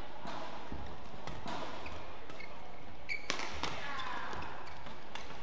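Badminton rally: a few sharp racket strikes on the shuttlecock, spaced a second or more apart, with players' footwork and shoe squeaks on the court.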